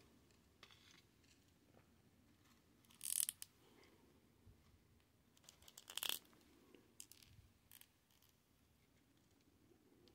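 Quiet handling noises from a small plastic toy dinosaur figure being turned over in the fingers: a few short rustles and scrapes, the loudest about three and six seconds in, with near quiet between.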